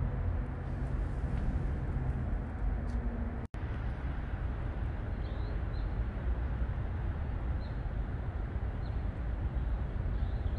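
Steady low outdoor background rumble, with a faint low hum in the first few seconds. It drops out for an instant about three and a half seconds in, and after that a bird chirps faintly about five times.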